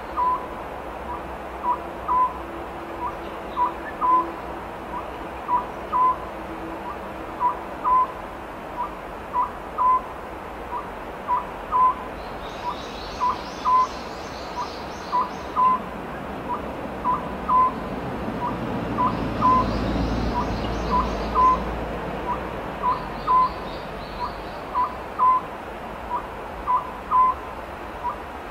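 Oriental scops owl singing: short notes near 1 kHz repeated steadily in phrases that recur about every two seconds.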